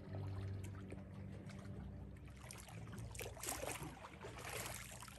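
Motorboat engine running at a distance, a steady low drone, with a flurry of faint crackling ticks about three seconds in.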